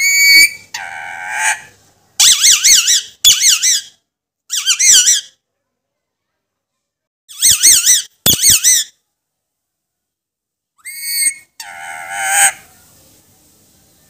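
Alexandrine parakeet giving a series of loud, harsh squawking calls with a fast quaver in pitch, in short bursts separated by pauses of one to two seconds. The calls stop about a second before the end.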